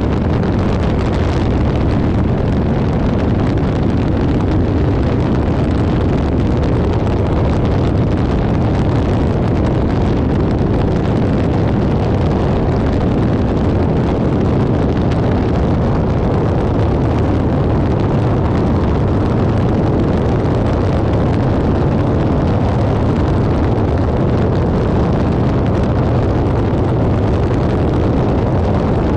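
Airbus H125 (Esquilo B3e) single-turbine helicopter running steadily: a constant, loud rumble of turbine and rotor that holds one level throughout.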